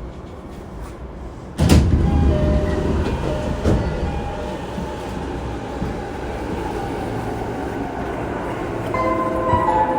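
JR East E233 series 3000 electric train running at speed, heard from inside the car: a steady rumble of wheels on rail that jumps suddenly louder about a second and a half in. Several steady tones join near the end.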